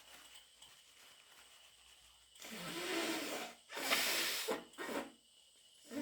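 A person with a wet head cold blowing their runny nose: two long blows starting about halfway through, the first with a buzzing, wet flutter, then a short third one.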